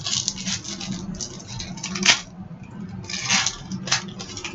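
Upper Deck hockey trading cards being handled: papery rustling in short bursts, with sharp taps about two seconds in and again near the end.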